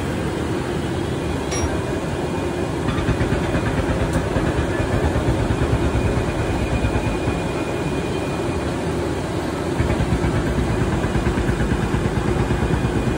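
A steady low rumble that swells and fades unevenly, with a few sharp clicks in the first three seconds.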